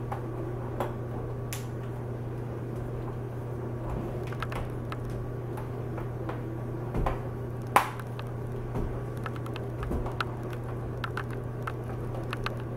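Plastic screen bezel of a laptop lid being pressed and snapped back into place: scattered small clicks and knocks, with one sharper snap about three-quarters of the way through, over a steady low hum.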